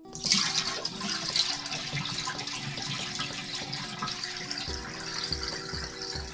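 Water rushing and splashing in a small portable washing machine's tub, starting suddenly, with faint music underneath.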